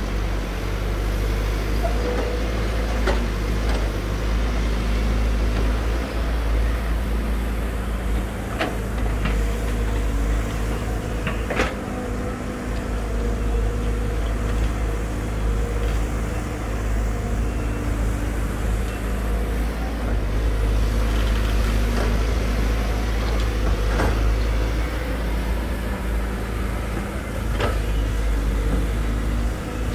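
Hydraulic crawler excavators digging, the nearest a Volvo EC210D: diesel engine running steadily under load as the boom and bucket work, with a few sharp clanks.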